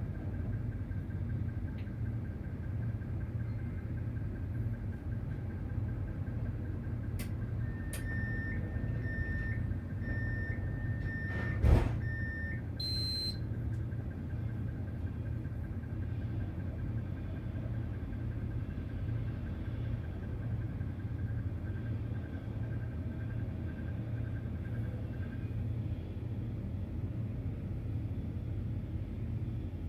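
A tram's steady low rumble. Around a third of the way in, a run of short evenly spaced beeps, typical of a tram's door-closing warning, ends with a single sharp knock as the doors shut, followed by a brief higher tone.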